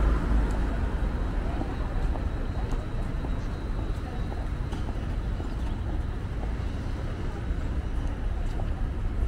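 Busy city street ambience: a steady low rumble of traffic with indistinct chatter of passers-by.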